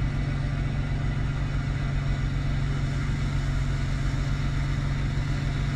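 A gas-fired heating appliance running steadily with a strong low hum, a sign the burner is firing and the heating system is working.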